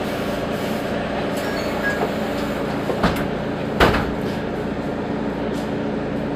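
Mercedes-Benz Citaro G articulated bus running, a steady engine and drivetrain hum with several held tones. Two sharp knocks come about three and four seconds in.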